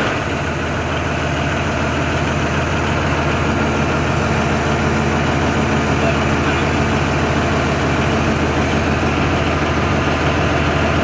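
Large air-started marine diesel engine idling steadily, a constant low hum with no change in speed.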